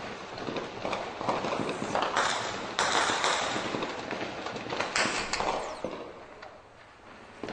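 Heavy gunfire during armed clashes: dense, rapid shots with the loudest bursts about two, three and five seconds in, easing off near the end.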